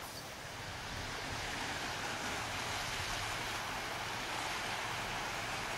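A motor cruiser passing on a canal: a steady rushing of water from its wash over the low hum of its engine, swelling over the first second and then holding.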